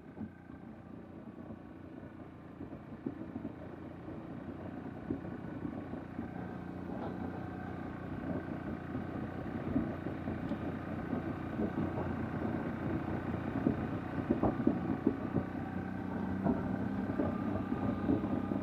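CFMoto CForce 800 ATV's V-twin engine running at low speed under load, slowly growing louder, with a constant crackling scrape of a plastic garbage can being dragged over the ground behind it.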